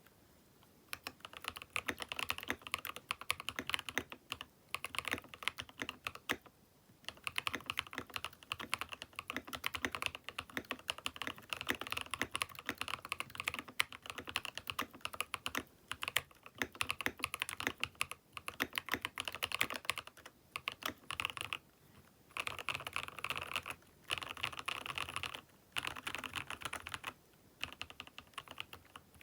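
Keychron K6 Pro mechanical keyboard with Jwick Vertex V1 switches being typed on: fast runs of keystrokes broken by short pauses every few seconds.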